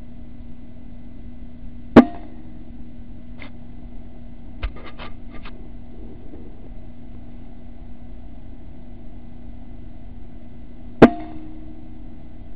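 Two air rifle shots about nine seconds apart, each a sharp crack with a brief ring after it. A few lighter clicks fall between them, and a steady low hum runs underneath.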